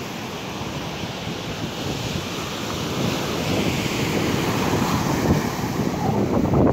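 Ocean surf washing onto a sandy beach, mixed with wind buffeting the microphone, growing gradually louder.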